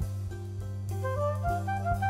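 Background music: a melody of short stepping notes over a steady low bass line, the melody coming in about a second in.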